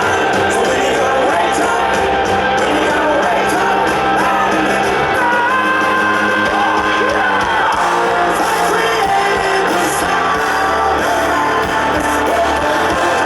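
Rock band playing live with a singer, loud and continuous, the voice holding long notes in the middle.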